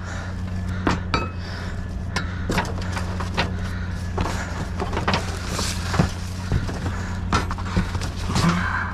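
Scrap and junk being rummaged through in a dumpster: irregular knocks, clinks and clatters, one or two a second, over a steady low hum.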